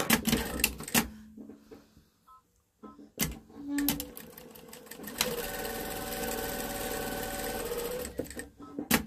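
Industrial sewing machine running steadily for about three seconds from a little past halfway, stitching a seam, with a motor whine under the stitching. Sharp clicks and knocks come in the first second and again just before the end.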